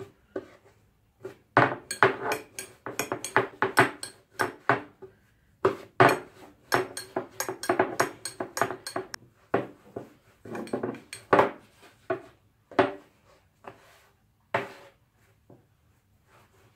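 Thin rolling pin clicking and knocking against a wooden pastry board as yeast dough is rolled out, in quick runs of clicks with short pauses between them.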